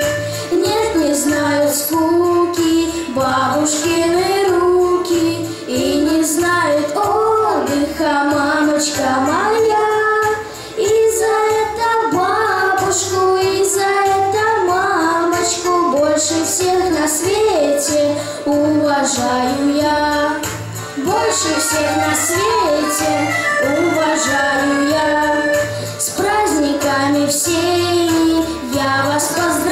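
A boy singing a song into a microphone over a recorded backing track with a steady beat.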